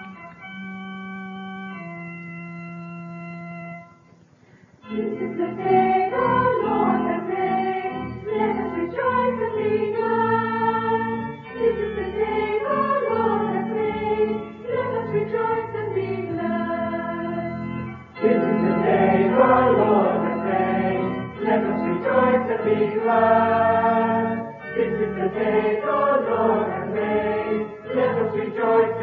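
A 1956 church organ plays two held chords, then after a brief pause, about five seconds in, a group of voices sings with the organ accompanying.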